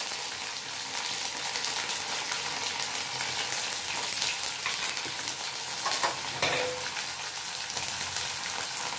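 Chopped onion, green chillies and spice paste sizzling in hot oil in a black iron kadai, stirred with a metal spatula that scrapes and ticks against the pan, with one louder knock about six seconds in.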